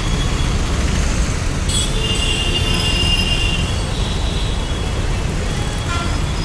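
Metro train rumbling, with a brief high metallic squeal of wheels or brakes about two seconds in.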